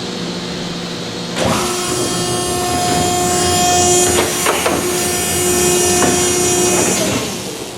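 Horizontal baler's hydraulic power pack, driven by a 30 hp electric motor, running with a steady hum. About a second and a half in, it suddenly gets louder with a steady whine and rattle, as under load, with a few sharp knocks in the middle, then eases off near the end.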